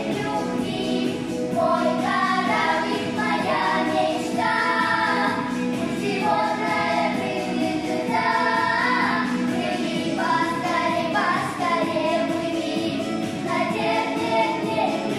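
A small group of young children, eight and under, singing a pop song together over an instrumental backing track.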